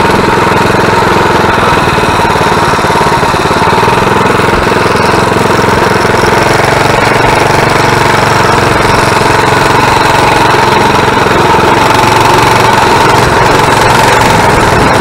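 Coleman mini bike's small single-cylinder four-stroke engine running loud and steady as the bike cruises along, a rapid, even exhaust beat with no let-up.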